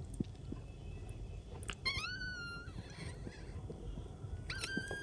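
Newborn puppy squeaking in high, thin cries: one longer cry about two seconds in and a shorter one near the end. Faint clicks of suckling at a feeding dropper come in between.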